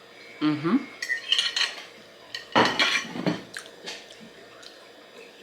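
Eating utensils clinking and scraping against a dish in a few short bursts, the loudest cluster a little past halfway, with a brief hummed 'mm' about half a second in.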